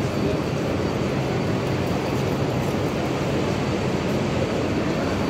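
Steady din of a busy railway station hall: the noise of a crowd moving through the concourse mixed with the rumble of trains.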